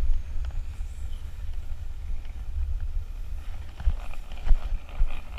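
Wind buffeting the microphone of a helmet-mounted camera during a fast ride down a paved street: a steady low rumble, with a few sharp knocks about four to five seconds in.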